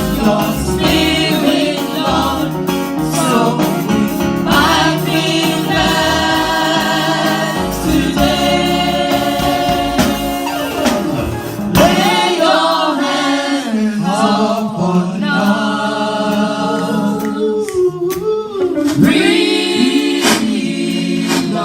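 Choir singing a gospel hymn, accompanied by instruments with a deep bass line; about halfway through the bass and accompaniment drop away and the voices carry on almost unaccompanied.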